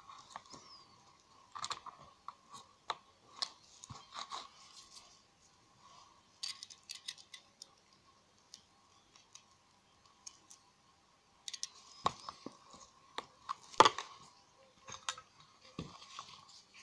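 Scattered clicks and crunchy scrapes of a screwdriver prying and scraping at the opened end of an AA alkaline battery's steel can. A sharper click stands out about three-quarters of the way in.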